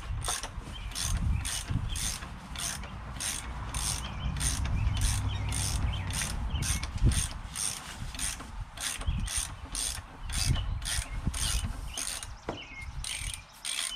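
Ratchet wrench clicking steadily, about two clicks a second, as a 27 mm socket backs the nut out of a mini excavator's track tension cylinder to release the grease and slacken the track.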